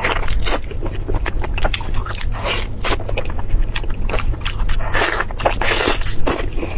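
Close-miked eating: crunchy biting and chewing, a dense, irregular run of sharp crackles and clicks with a few scraping sounds.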